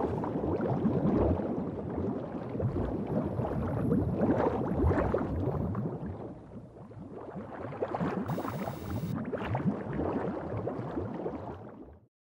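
Bubbling, gurgling water sound made of dense short pops, easing off around the middle, then building again before it cuts off abruptly near the end.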